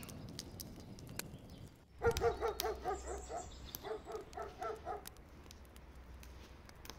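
Wood fire crackling with sharp pops; about two seconds in, a dog barks in a quick run of short, repeated barks, about three or four a second, for some three seconds.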